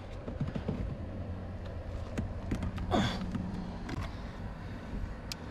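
Cabin air filter being worked out of its plastic housing behind the glove box: light clicks and scrapes of plastic, with a brief falling sigh about three seconds in, over a low steady rumble.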